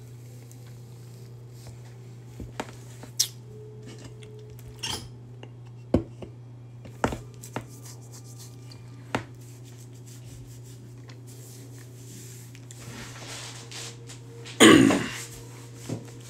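Steady low hum with scattered knocks and clicks of a phone and drink can being handled, and one loud, rough, half-second sound about fifteen seconds in.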